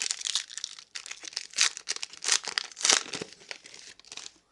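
Foil wrapper of a 2008-09 SP Rookie Threads basketball card pack being torn open and crinkled by hand: a run of crackling with louder crinkles about one and a half, two and a half and three seconds in, stopping just before the end.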